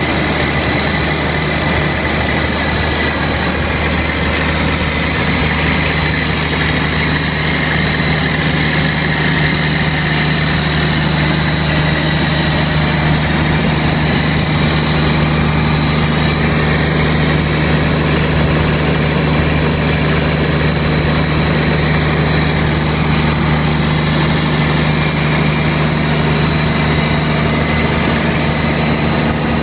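Caterpillar 3456 inline-six diesel generator set running at a steady speed: a constant low engine drone with a thin high whine over it.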